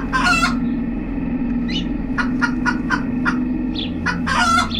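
Chickens clucking: a run of short clucks, about four a second, in the middle and a longer burst of cackling near the start and again near the end, over a steady low hum.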